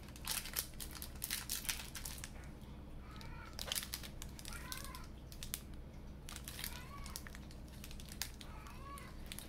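Plastic wrapper of a Milky Way chocolate bar crinkling as it is opened by hand, the crackles busiest in the first two seconds and sparser after. A cat meows faintly about four times.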